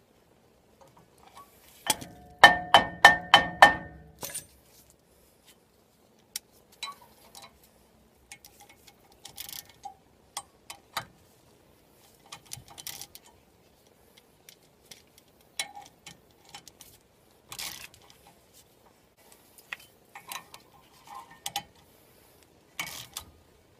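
Ratchet wrench clicking as bolts are wound into the puller holes of a rust-seized front brake disc to press it off the hub. About two seconds in, a quick run of about seven loud clicks rings through the metal disc; after that come scattered quieter clicks and knocks of tool and metal.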